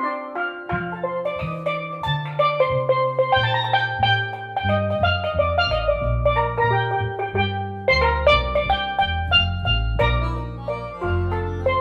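Steel pan, accordion and double bass playing together: quick struck steel pan notes carry the tune over a low bass line that comes in about a second in.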